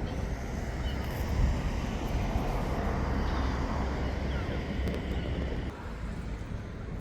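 Vehicle noise: a low rumble that swells and then drops away near the end.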